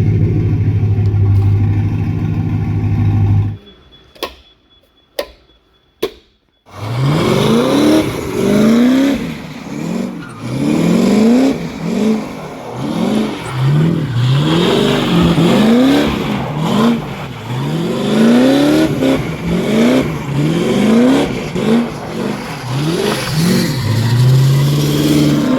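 Ford Ranger's 5.0 V8 engine held at steady high revs, then, after a short gap with a few clicks, revved up again and again, the note rising and dropping roughly once a second. The hard driving tests a freshly installed limited-slip differential.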